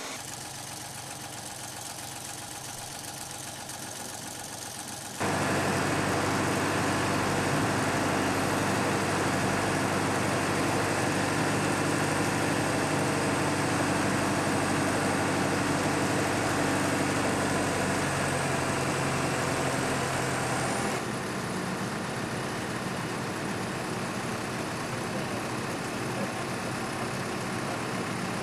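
A heavy lifting machine's engine running at a steady idle, starting abruptly about five seconds in after a quieter steady background and dropping somewhat in level about 21 seconds in.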